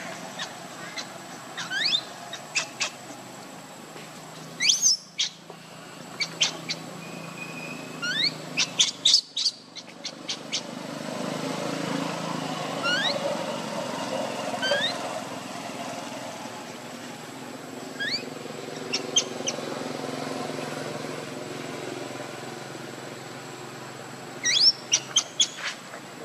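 Short, high chirping calls that rise sharply in pitch, coming in quick runs of a few at a time every few seconds, over a steady outdoor background.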